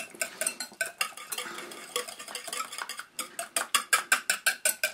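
Wire whisk beating a thick mayonnaise dressing in a ceramic bowl, its metal wires clicking quickly against the bowl about five times a second.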